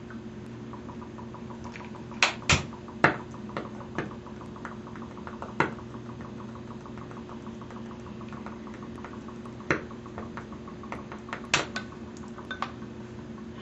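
Sharp, irregular pops of hydrogen-oxygen gas from a homemade electrolysis cell igniting at the tip of its hose, the loudest few in quick succession a couple of seconds in and another pair near the end. A steady low hum runs underneath.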